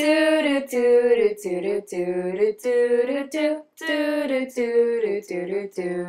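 A woman singing unaccompanied in short phrases of held notes that step up and down in pitch, with brief pauses between phrases.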